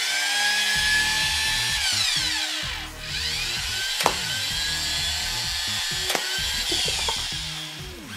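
Nerf Combat Creatures Terradrone's battery-powered gear motor whining as the remote-controlled robot moves, in two runs: the whine rises as it starts, holds steady, and falls away as it stops about three seconds in, then starts again and winds down near the end. A sharp click about four seconds in.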